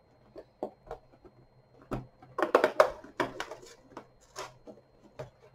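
Cardboard advent calendar door and the packaging inside being opened by hand: scattered clicks and rustles, busiest around the middle.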